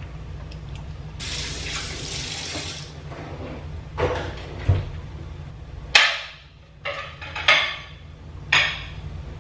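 A kitchen tap runs briefly, then a string of sharp kitchen clatters and knocks, about six of them, over a low hum that stops partway through.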